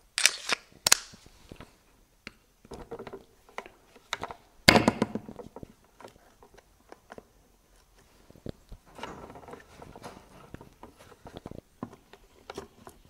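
Clicks, taps and knocks of hand tools and loose metal parts as the Jabsco oil change pump's electric motor housing is taken apart, with one louder knock about five seconds in and a run of light rattling and clicking later on.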